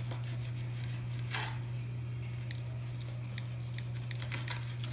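Carving knife cutting through roast pork on a plastic cutting board, with small clicks and a scrape of the blade about a second and a half in, over a steady low hum.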